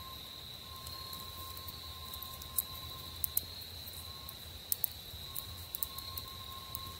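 Steady chorus of crickets trilling in autumn woods, with a few sharp pops from a small campfire crackling.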